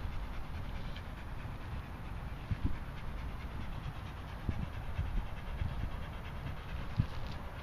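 Dogs panting and breathing hard while tugging on a red rubber toy held in their mouths, over a low steady rumble, with a few soft thumps.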